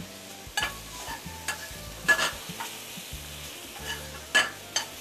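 Sliced boletus mushrooms sizzling in a frying pan, with about five short scrapes and clinks of a utensil against the pan as they are stirred and turned. The mushrooms have just finished a quick sauté in olive oil.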